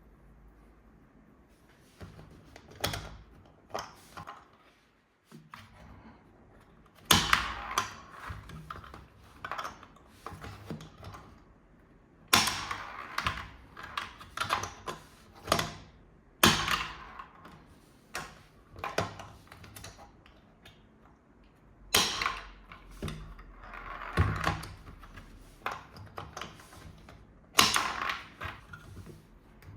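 Hard plastic toy pieces being handled: irregular clicks, clacks and knocks, bunched into quick runs of taps every second or two.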